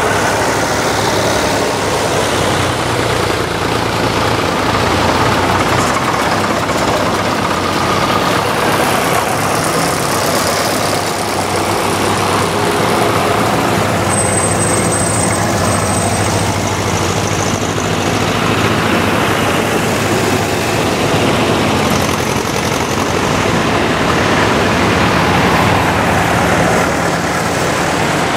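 A line of vintage tractors, a John Deere and a Massey Ferguson among them, driving past one after another, their engines running steadily with a slight swell and fade as each one goes by.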